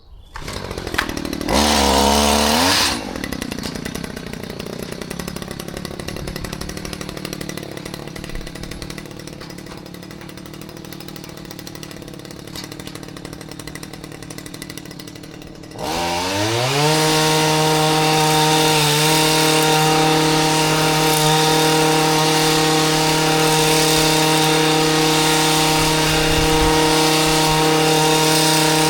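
Small petrol engine of a hedge-cutting power tool starting up and revving briefly about a second and a half in, then idling. About sixteen seconds in it revs up to full throttle and holds steady at high speed.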